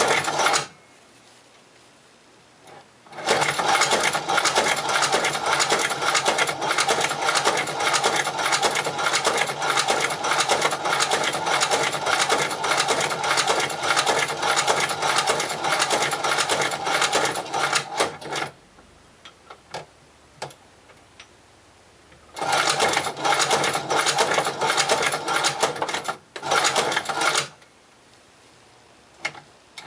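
Chinese shoe patcher sewing machine stitching leather, a rapid, even clatter of stitches. It runs in one long run of about fifteen seconds, then stops with a few single clicks, and starts again in two shorter runs near the end.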